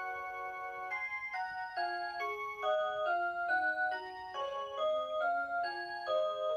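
Rhythm Watch Aria Cantabile melody alarm clock playing its electronic Aurora Sound tune. Bright chime-like notes sound in several parts at once, changing a few times a second.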